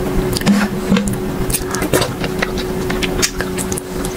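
Close-up eating sounds: a metal spoon scooping milky vermicelli pudding from a glass bowl, with wet mouth clicks and squishes as it is eaten. A steady low hum runs underneath.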